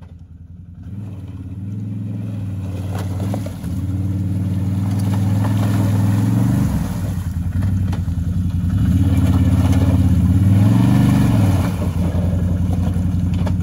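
ATV engine revving up and down in repeated pulls while the quad churns through icy, muddy water. The engine comes in about a second in and is loudest in two long surges.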